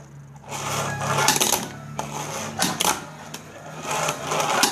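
Tech Deck fingerboard worked on a hard tabletop: small wheels rolling and several sharp clacks as the board's tail and deck snap down during fingerboard tricks.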